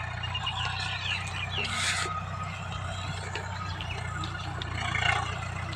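A steady low engine hum, with birds chirping over it and a brief hiss about two seconds in.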